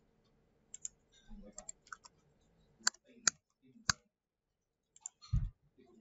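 Computer mouse and keyboard clicks: scattered light clicks, three sharper clicks between about three and four seconds in, then a dull low thump a little after five seconds.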